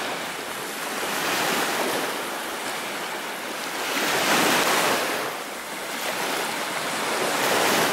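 Small lake waves breaking and washing up a sandy shore, swelling and fading every two to three seconds.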